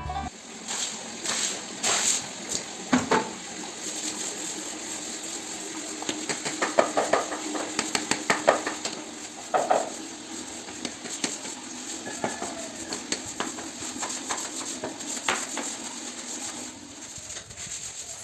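Irregular clinking and knocking of hard household objects being handled and set down, busiest in the middle stretch.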